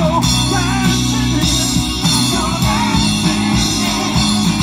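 Live rock band playing through a PA: a sung lead vocal over electric guitar and drum kit.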